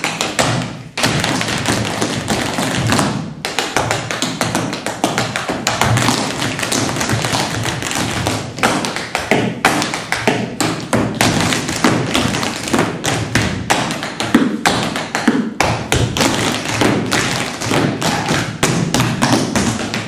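Tap shoes on a wooden floor: dense, rapid, overlapping taps and heavier stamps from several dancers, with brief pauses about a second in and a little after three seconds.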